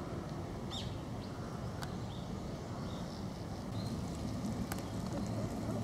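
A few short, high chirps from small birds over a steady low background hum.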